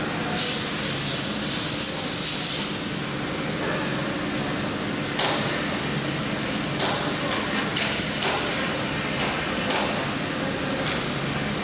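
CNC router spindle running with a steady hum while its end mill cuts into a styrofoam block, with a hiss of foam being cut that is strongest in the first couple of seconds. Several short sharp ticks come in the second half.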